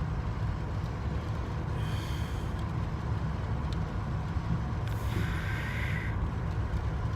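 Steady low rumble of a car's engine and tyres heard from inside the moving taxi on a wet road. There are two brief hissing swooshes, about two seconds in and again around five seconds in.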